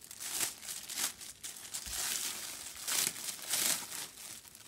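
Crinkly plastic wrapping being handled and pulled open: irregular rustling and crackling, loudest about three seconds in.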